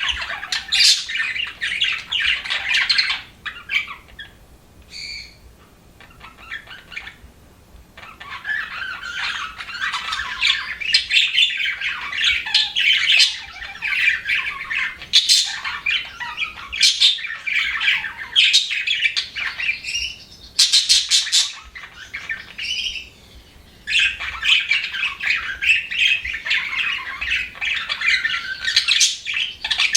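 Budgerigars chattering: fast, continuous warbling chirps and squawks. The chatter drops to a few scattered calls for several seconds early on and briefly again later, then resumes in full.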